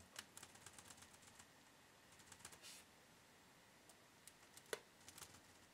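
Faint clicks of laptop keys being pressed: a quick run of taps in the first second or so, then scattered single presses.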